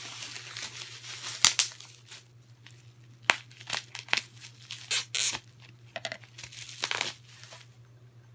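Bubble wrap being torn and pulled off a wrapped baseball bat by hand: irregular crinkling with several sharper, louder rips, dying away near the end.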